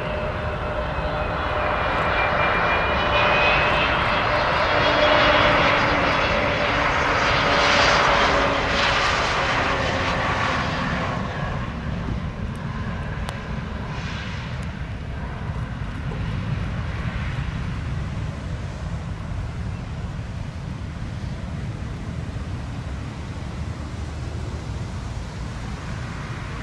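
Airbus A320neo twinjet landing: the engines' whine swells to its loudest as it passes close about five to nine seconds in. It then fades into a steady low rumble as the jet touches down and rolls out along the runway.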